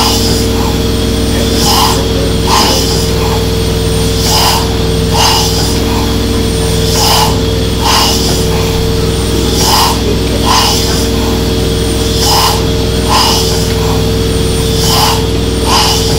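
1870s single-cylinder stationary steam engine running slowly. Its exhaust puffs and mechanical knocks come in an uneven repeating rhythm, a group of two or three about every two and a half seconds, over a steady low hum.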